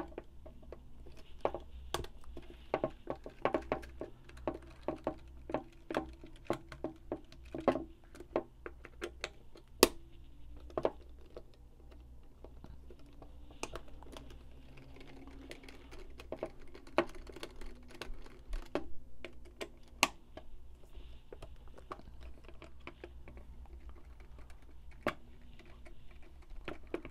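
A small screwdriver loosening the screws in the plastic housing of a Mission TPR launcher: irregular light clicks and taps of the tool and the handled frame, busiest in the first several seconds and sparser later.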